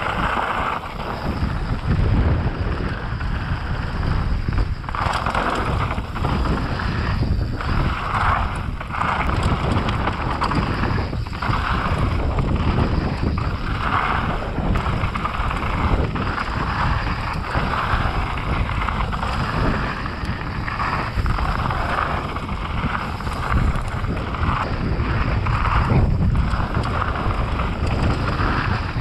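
Wind buffeting the microphone on a fast mountain-bike descent, with a continuous low rumble of the bike over rough trail ground and scattered small knocks.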